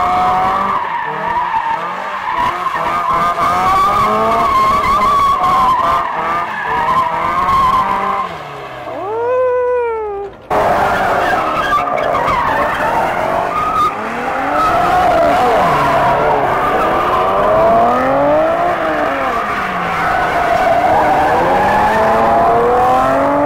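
Cars doing donuts: tyres squealing and skidding on pavement while the engines rev up and down. About ten seconds in, the engine note falls away and the sound cuts off abruptly. It then resumes with another run of revving and tyre squeal.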